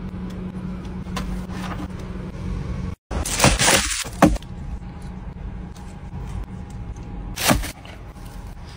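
Plastic carrier bag rustling and crinkling for about a second as it is pulled open. Near the end comes a short crackle from a clear plastic food-container lid. Both sound over the steady low hum of a car cabin.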